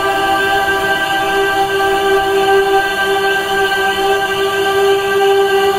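Soothing ambient music: a steady, held chord of several sustained tones with no beat.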